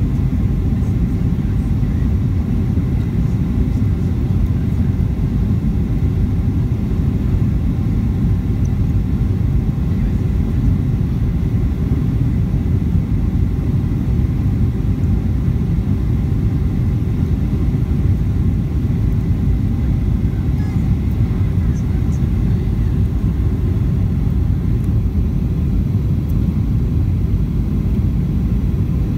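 Jet airliner cabin noise from a window seat beside the engine on approach: a steady, low rumble of engine and airflow that does not change.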